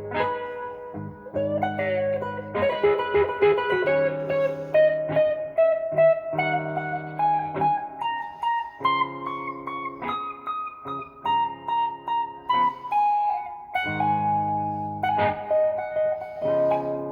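Gibson SG Special electric guitar on its neck pickup, played through a Fender Blues Junior tube amp with overdrive, delay and reverb: a slow blues lead of sustained single notes with string bends, over held chords, in A-minor fingering tuned down to E-flat (sounding A-flat minor).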